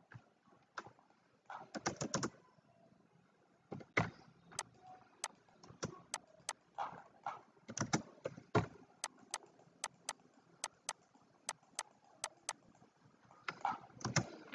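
Computer keyboard keys and mouse buttons being tapped: scattered single clicks, then an even run of about three clicks a second from about nine to twelve seconds in.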